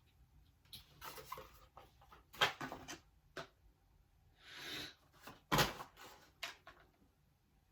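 Cardboard and plastic toy packaging being handled as pieces are taken out of the box: scattered light clicks and knocks, a short rustle about four and a half seconds in, and a sharper knock a second later.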